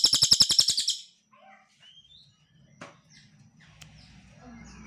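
Cililin bird singing: a loud, very fast rattling trill that stops abruptly about a second in, followed by faint scattered chirps.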